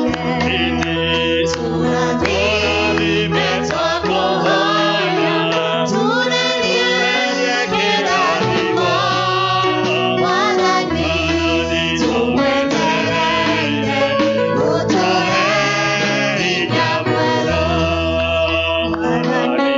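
Church praise team singing a hymn together into microphones, over an electric bass guitar playing long, held low notes.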